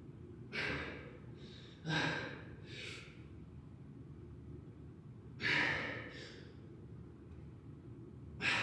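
A man's forceful, breathy exhalations, about five of them a second to three seconds apart, over a steady low hum. This is the hard breathing of a lifter straining through a weightlifting set.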